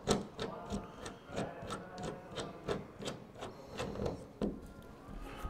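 Slotted screws being turned with a hand screwdriver to fasten a hood light to a fiberglass truck hood: a run of sharp clicks and scraping, about three a second.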